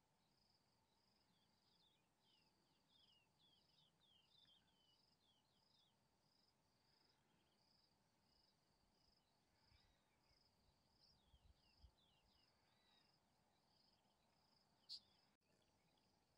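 Faint grassland ambience: an insect chirps steadily in a high, even pulse about two times a second, while a bird gives quick runs of short falling chirps in the first few seconds and again around eleven seconds in. A few soft low thumps come around eleven seconds, and one sharp high click near the end.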